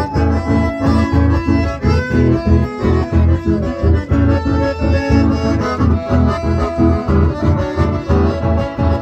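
Live folk dance band, two button accordions leading over guitar, playing through a PA with a steady, driving low beat.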